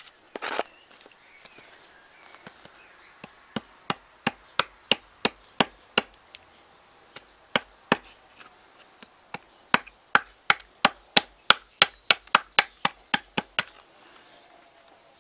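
Small axe chopping into a seasoned alder spoon blank resting on a wooden block: a run of quick, sharp strikes, about three a second, with a short pause partway through, taking wood off the back of the spoon.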